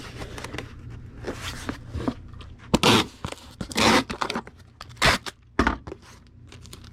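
Packing materials being handled as a VHS tape is wrapped and boxed for shipping: rustling, with several short tearing sounds.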